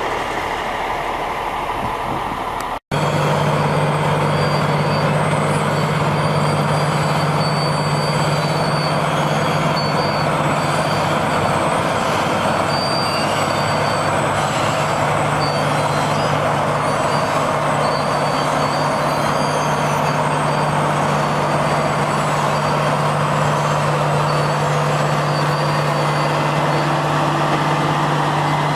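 Heavy road-construction machinery running steadily, a deep engine drone with faint high tones coming and going above it. The sound cuts out for an instant about three seconds in, then carries on slightly louder.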